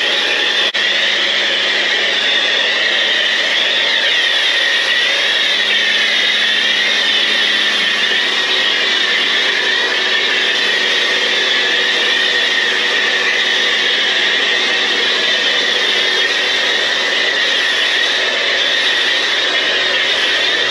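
Kärcher K2 electric pressure washer running and spraying water: a loud, steady noise of pump and spray with a low hum under it.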